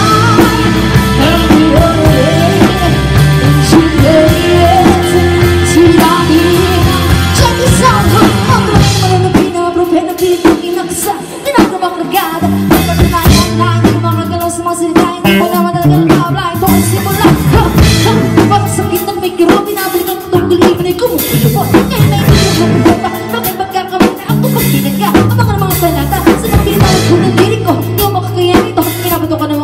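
Live band playing a song: lead vocals over electric bass, electric guitar and a drum kit with a steady beat.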